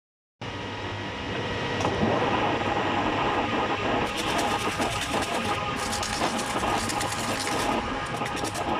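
Machine-shop machinery running: a steady mechanical whir with a faint held tone, joined by rapid fine clicking from about four seconds in.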